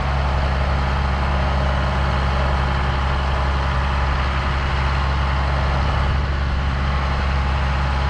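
John Deere diesel tractor engine running steadily under way, a deep, even hum with no change in speed.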